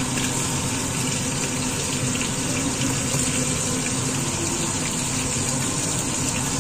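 Fish frying in a lidded frying pan: a steady sizzle.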